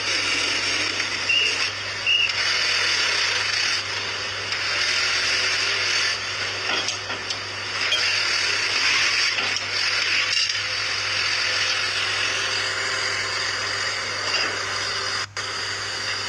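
Steady hissing machine noise of a hydraulic concrete pile breaker hung from a crane, working on concrete pile heads, with a low hum underneath and a few small knocks. The sound breaks off briefly with a click near the end.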